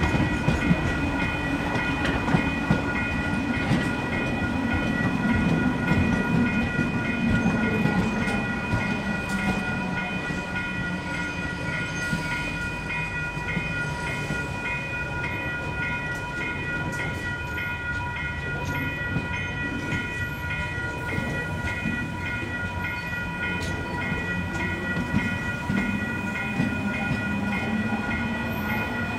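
Diesel-hauled freight train running by, with its engine note and its wheels clacking over the rail joints. The clacking is heavier in the first several seconds.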